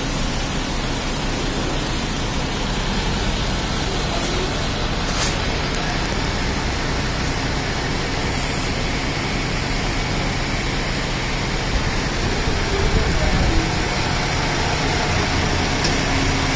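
MAN TGS 33.440 truck's diesel engine idling steadily.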